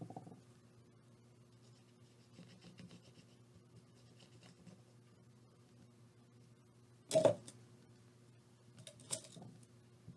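Faint handling sounds of glue-covered fabric being folded and pressed onto a small box, with a single knock about seven seconds in and a few small clicks near the end, over a low steady hum.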